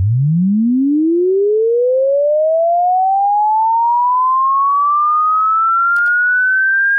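A single pure electronic tone sliding smoothly upward in pitch from a deep hum to a high whistle, rising quickly at first and then more slowly. A short click comes about six seconds in.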